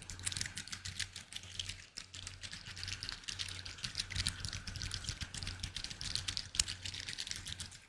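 Fast, irregular ASMR tapping: many light clicks close together, with a faint steady low hum underneath.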